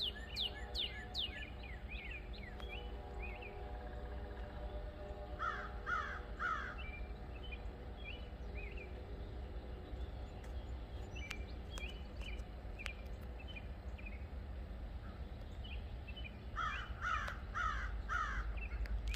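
A crow cawing in two bouts, three caws and later four, while smaller birds chirp and a steady low rumble runs underneath.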